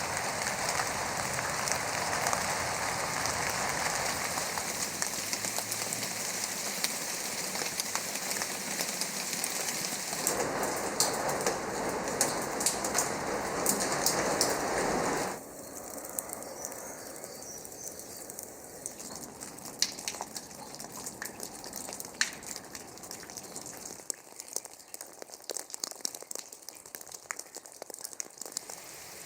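Rain falling, first as a dense, steady hiss of drops. About halfway through it cuts abruptly to lighter, quieter rain, where separate drops stand out as sharp clicks against the hiss.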